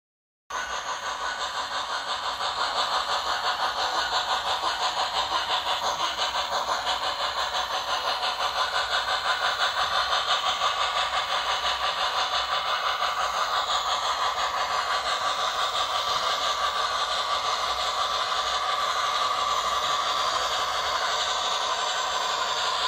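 MTH HO scale DM&IR Yellowstone model steam locomotive's onboard sound system playing rapid, even steam exhaust chuffs as the model runs. The chuffing starts abruptly about half a second in.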